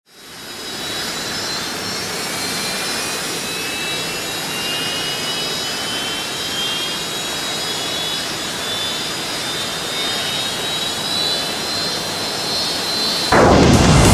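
A steady jet-like rushing sound effect, fading in over the first second, with thin whistling tones that slowly rise in pitch. About a second before the end, a loud electronic dance track cuts in suddenly.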